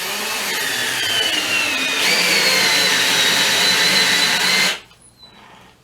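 Battery-powered drill driving the 3/4-inch bolt of a clamp-on bead breaker, its motor whine slowly falling in pitch as the load builds while the foot forces the tire bead off the rim. The motor picks up briefly about two seconds in and stops just before the end.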